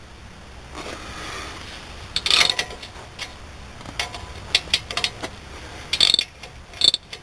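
Hand ratchet wrench clicking in short bursts as suspension nuts are tightened, the clicks coming in several separate spells from about two seconds in.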